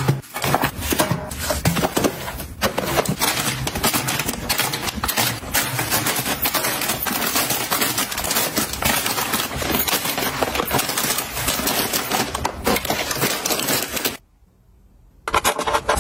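Plastic snack wrappers crinkling and rustling as packets are handled and packed into plastic baskets, with light knocks against the baskets. The crinkling is dense and irregular, and it breaks off for about a second near the end.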